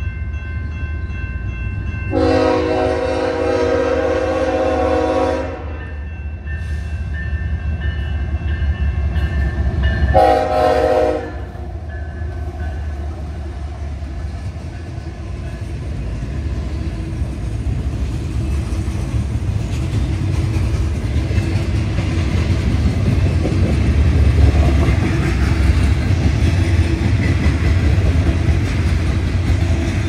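BNSF diesel locomotive horn sounding for the grade crossing: a long blast about two seconds in and a shorter one about ten seconds in. After that the low rumble and wheel clatter of the double-stack container train grow louder as it rolls through the crossing.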